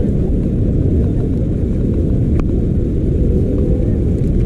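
Athirappilly waterfall's rushing water, a steady low roar.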